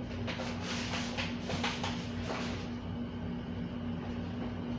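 A steady kitchen-appliance hum at one pitch, with soft rustling and scraping for the first couple of seconds that stops before the midpoint.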